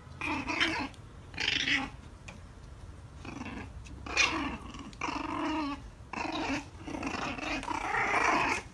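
French bulldog puppies growling at each other as they play-fight, in short rough bursts one after another.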